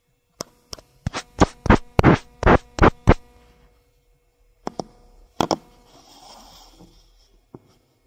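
Fingertips tapping and scratching on the plastic case of a Yongnuo Feng wireless transmitter. A quick run of about nine sharp taps comes in the first three seconds, two more near the middle, then a soft rubbing and a last click.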